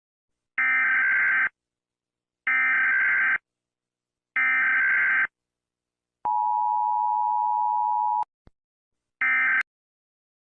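Emergency Alert System signal. Three roughly one-second bursts of warbling SAME digital data tones come first, then about two seconds of the steady two-tone EAS attention signal, a faint click, and one short final data burst.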